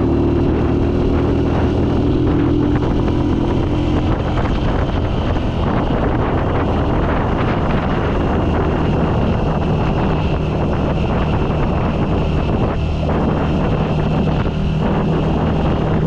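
Motorcycle engine running steadily while riding, with wind noise on the microphone. The engine's note shifts about four seconds in.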